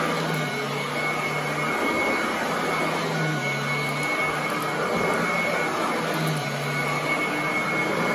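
Royal commercial upright vacuum cleaner running on carpet: steady motor noise with a high, screaming whine on top, and a lower hum that comes and goes every couple of seconds as the head is pushed over the carpet.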